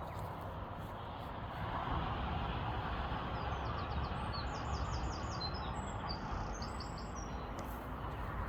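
A small bird sings a quick run of high, repeated notes, roughly six a second, starting about three seconds in and lasting about three seconds. Under it is a steady low rumble and hiss of outdoor background noise that swells slightly a couple of seconds in.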